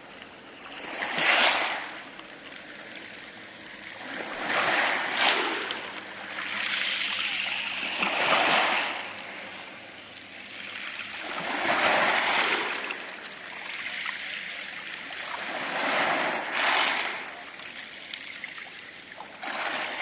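Sea waves washing up and back over a pebble beach: six surges, each a rush of water that swells and fades, coming about every three to four seconds.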